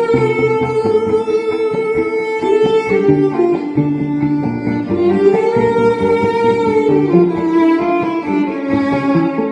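Instrumental music: a bowed violin holds long notes that slide up and down between pitches, over a repeating plucked-string accompaniment.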